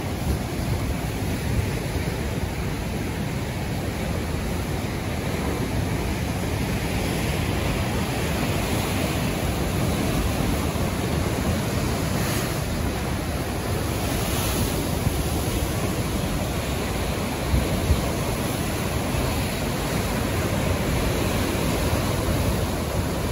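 Ocean surf breaking and churning against coastal rocks: a steady wash of waves and foam, with a louder surge of spray about halfway through.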